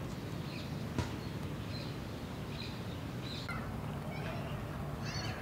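Small birds chirping in short, scattered calls, with a quick wavering trill near the end, over a steady low background rumble; a single sharp click about a second in.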